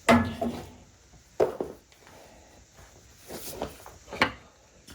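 A few sharp wooden knocks and clunks of tools and the workpiece being handled on a workbench, the loudest right at the start.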